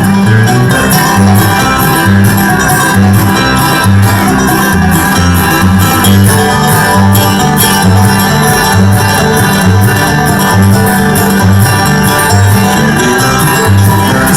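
Bluegrass band playing an instrumental break between sung verses: plucked strings and fiddle over a steady, even bass beat.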